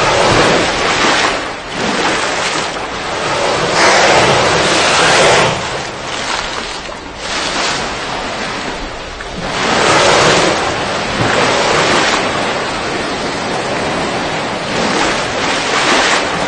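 Ocean waves surging: a loud, steady rushing that swells and falls back every few seconds.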